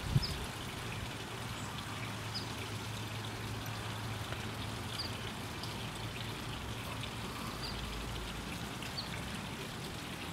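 Tiered garden fountain trickling steadily, with brief high chirps every second or two.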